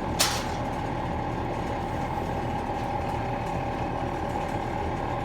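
Electric blower running steadily, forcing air into a freshly stoked coal forge fire, with a steady hum and faint whine. A short, sharp scrape sounds about a quarter second in.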